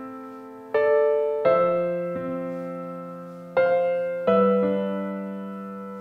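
Slow piano music: a handful of chords struck about a second apart, each left to ring and fade away.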